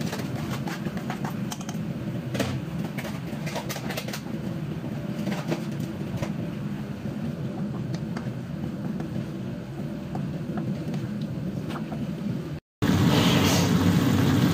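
Spatula stirring chicken in a non-stick frying pan, with light scrapes and clicks over a steady low kitchen hum. The sound cuts out for a moment near the end and comes back louder.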